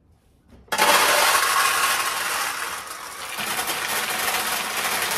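A handful of steel pachinko balls poured by hand into a vintage Heiwa Single Shot pachinko machine, clattering as they run through its metal hopper and runways. The clatter starts suddenly under a second in, eases a little about halfway, then picks up again.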